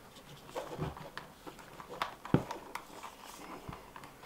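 Hands handling a plastic 12-volt tire inflator and its braided air hose: scattered light clicks, knocks and rustling, with one sharper knock a little over two seconds in.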